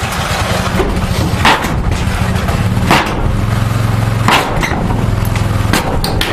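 Three heavy blows about a second and a half apart, striking wooden wall boards nailed to studs, with smaller knocks and cracks of wood between them. A steady low engine hum runs underneath.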